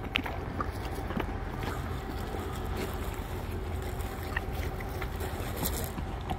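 Horse chewing an apple close up, with a few scattered crunches, over a steady low wind rumble on the microphone.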